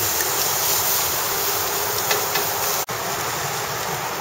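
Food sizzling on a barbecue grill: a steady hiss that drops out for an instant near three seconds in.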